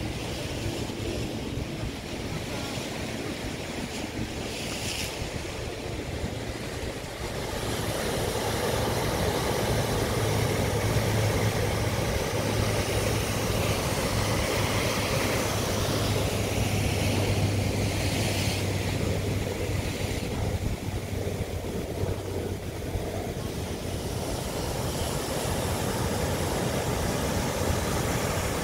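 Ocean surf breaking and washing in white water, with wind on the microphone; it grows louder about a quarter of the way in. A steady low hum runs underneath through the middle stretch.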